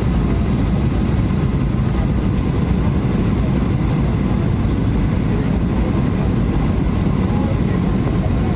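Steady cabin noise of a Boeing 737-800 on final approach: a deep rumble of airflow and its CFM56 jet engines, with a faint high whine that comes in a few seconds in.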